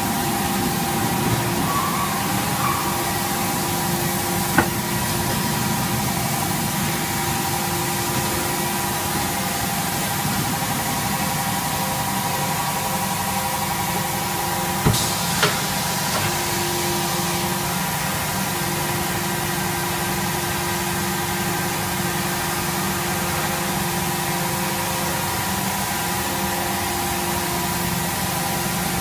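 Motorcycle tire vulcanizing press machinery running with a steady hum and several steady tones. A sharp click comes about five seconds in, and two more close together about halfway through.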